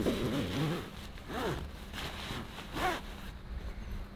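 A zipper being pulled in three short rasping strokes: a longer one at the start, then two quicker ones about a second and a half apart, each rising and falling in pitch with the speed of the pull.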